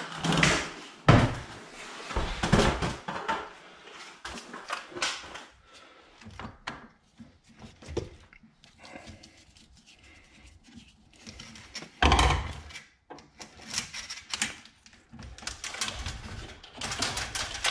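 Knocks and clatter of a stepladder being handled in the first few seconds, then the scattered clicks, taps and scrapes of a hand tool on the metal end bracket of a garage door's torsion spring tube, with one loud thump about twelve seconds in.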